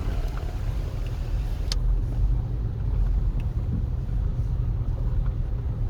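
Steady low rumble of a car's engine and road noise heard from inside the cabin while driving, with a single sharp click about two seconds in.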